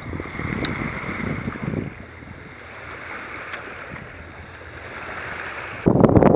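Wind buffeting the microphone over a steady rush of water along a sailing yacht's hull while it is under sail. The wind rumble comes in gusts at first, then gets suddenly much louder near the end.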